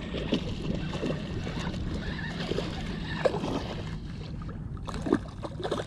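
Water sloshing and lapping against a plastic kayak hull, with a steady low hum underneath and a couple of short knocks.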